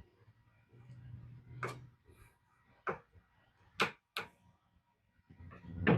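Sharp single clicks of dice and casino chips handled on a craps table, about one a second. A low rumble comes early, and a louder clatter comes near the end.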